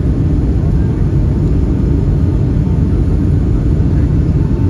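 Steady low rumble of a Boeing 757 airliner in flight on its approach to land, engine and airflow noise as heard inside the passenger cabin.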